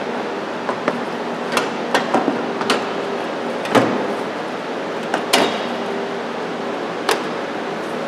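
Hard plastic clicks and knocks as a Mercedes-Benz C240 headlight assembly is handled and pushed into place in the car's front end: about ten sharp taps at irregular intervals, the loudest a little before four seconds in and just after five seconds in, over a steady background hum.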